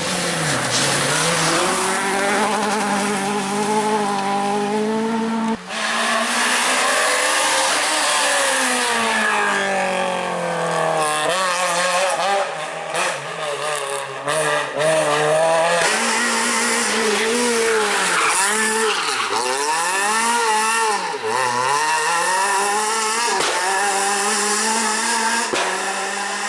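Renault Clio R3 rally car engine revving hard, its pitch climbing and dropping again and again as it goes up and down the gears, with an abrupt change in the sound about five seconds in and a run of quick rises and falls in the second half.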